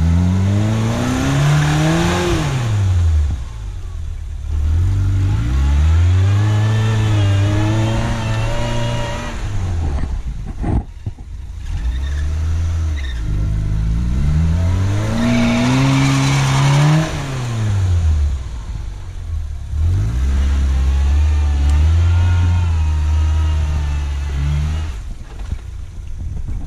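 Suzuki SJ410 4x4 engine revving up and dropping back again and again, about five swells in pitch, with one rev held steady for several seconds near the end, as it works the vehicle up a deep-snow trail.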